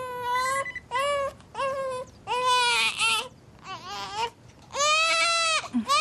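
Infant crying: a string of about six short wails with brief gaps between them, the last one running on.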